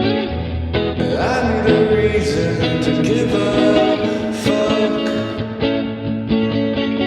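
Band music: guitar over a heavy bass line, with a lead melody that slides up and down in pitch and occasional cymbal crashes.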